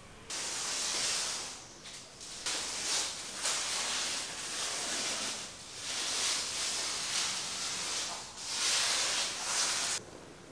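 Hand scrubbing or rubbing on a window and its frame: a run of long hissing strokes, each a second or two, with short breaks between. The strokes stop suddenly near the end.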